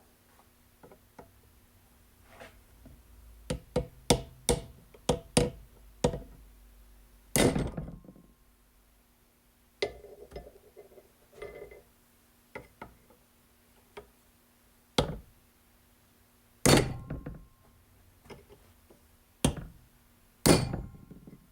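Big hammer striking the seized bearing on a Case 224 mowing deck spindle to break it apart: a quick run of about eight sharp blows, then single heavy blows a few seconds apart, each with a short metallic ring. The bearing does not come apart.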